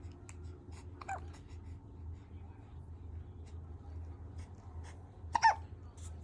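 Newborn baby boy hiccuping: a soft squeaky hic about a second in and a much louder, sharper hic about five and a half seconds in, with faint small clicks between.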